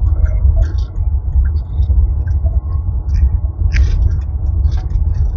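Steady low rumble of a vehicle being driven, heard from inside, with scattered light clicks and rattles.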